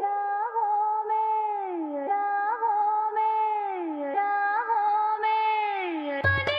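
Outro music: a single melody line in three repeating phrases of about two seconds, each ending in a slow downward glide. Just before the end, a drumbeat and bass come in.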